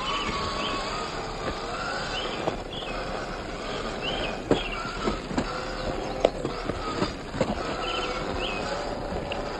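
1/10-scale RC rock crawler (Axial SCX10 III with a Hobbywing Fusion motor) running: a steady motor-and-gear whine that wanders in pitch with the throttle, broken by irregular clicks and knocks as it crawls over the terrain. Short repeated bird chirps sound over it.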